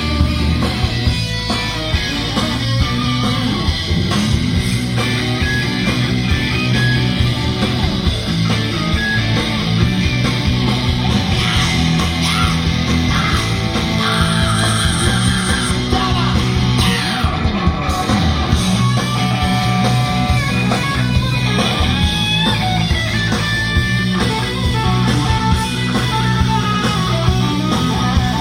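Live rock band playing loud and steady without vocals, electric guitar prominent, with some sliding guitar notes about halfway through.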